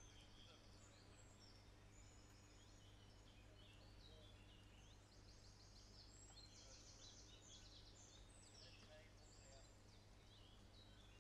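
Faint songbirds chirping and trilling over a steady low background hum.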